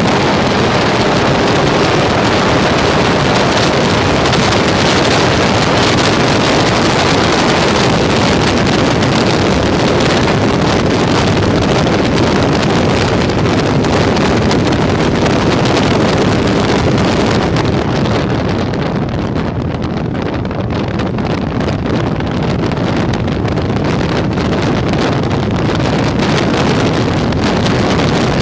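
Loud wind rush and buffeting on the microphone of a phone riding on an RC airplane in flight. The hiss thins out in the upper range for a few seconds around two-thirds of the way through, then fills back in.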